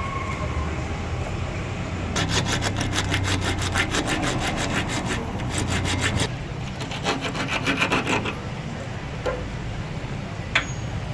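Hand saw cutting through a metal A/C pipe in fast, even back-and-forth strokes, about six a second for some four seconds, then a shorter, looser run of strokes. A steady low hum runs underneath.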